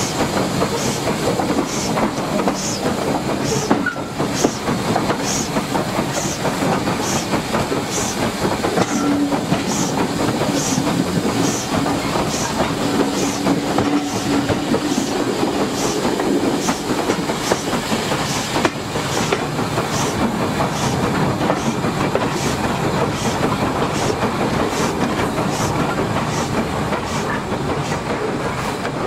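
Train ride aboard a passenger carriage hauled by a Bagnall saddle tank steam locomotive: steady running noise of wheels on rails with an even, regular beat about twice a second.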